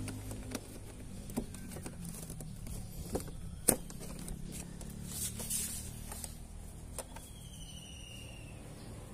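Scattered clicks and knocks with a short rustle, from hands working on a car door's trim and insulation; the sharpest click comes a little past the middle.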